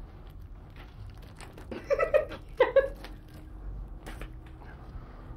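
A person's voice: two short vocal sounds a little over two seconds in, like a brief laugh or utterance, over faint rustling and light clicks from something being handled.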